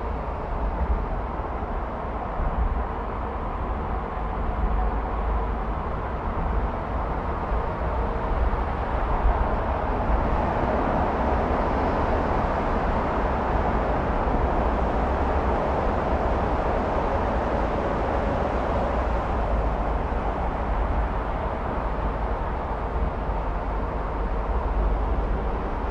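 Steady road and traffic noise of a car driving through city streets, with a deep low rumble underneath; it grows slightly louder about ten seconds in.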